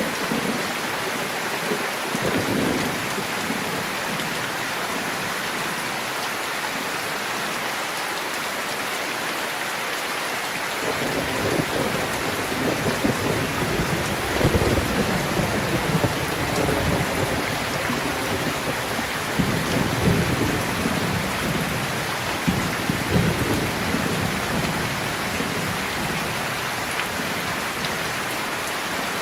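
Steady heavy rain hissing throughout. Thunder rumbles in about a third of the way through and rolls on, swelling several times, until past the middle.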